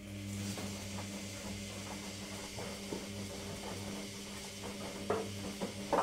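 Logik front-loading washing machine in its main wash: the drum motor starts up and hums steadily as the drum turns, with water swishing and the wet laundry sloshing and knocking inside. There are two louder thuds near the end.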